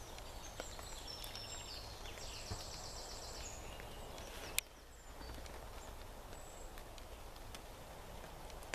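Wet woodland ambience: a steady faint hiss with scattered small ticks of dripping water, and a songbird's rapid high trill about a second in, lasting roughly two seconds. A single sharp click comes about halfway through, after which the background is slightly quieter.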